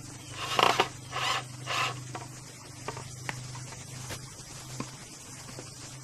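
Cordless drill driving a screw into a wooden board in three short bursts, followed by a few light knocks of wooden boards being handled.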